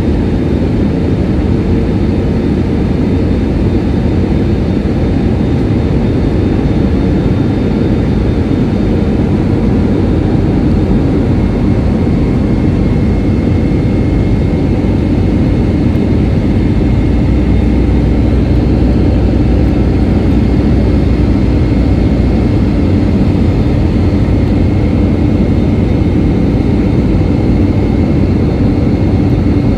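Steady cabin noise of a jet airliner in flight, engines and rushing air heavy in the low end. A faint high steady whine comes in about twelve seconds in.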